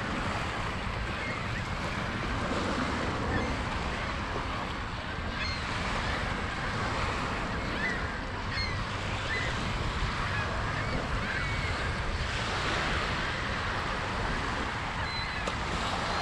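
Lake Michigan waves washing on the beach, a steady surf noise, with wind buffeting the microphone. A few faint high chirps come through in the middle.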